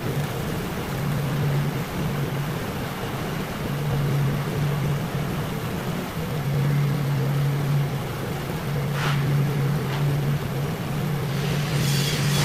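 TIP TIG (hot-wire TIG) welding arc on 904 stainless steel under argon shielding gas, starting at the outset and running as a steady hiss with a low buzz that comes and goes. It turns harsher and crackly near the end.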